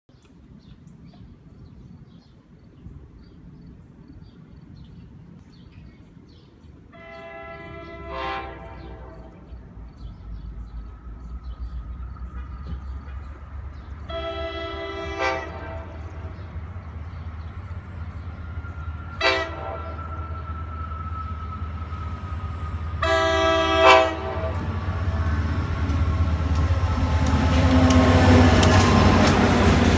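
An approaching EMD GP40PH-2B diesel locomotive sounds its horn in the grade-crossing signal: long, long, short, long. Its engine rumble and the rail noise build steadily louder until the locomotive rolls past close by near the end, with wheel and rail clatter.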